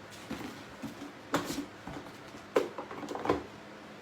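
A few light knocks and clatters from a plastic box being handled and worked on, spaced about a second apart.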